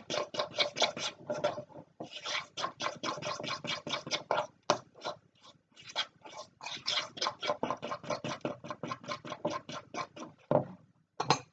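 Cake batter being mixed in a bowl: quick, rhythmic scraping strokes of about four or five a second, with brief pauses and two separate strokes near the end.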